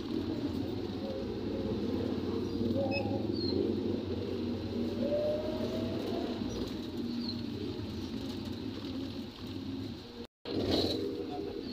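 Engine and road noise inside the cabin of a moving vehicle, steady, with a short rising tone about five seconds in. The sound cuts out completely for a split second near the end.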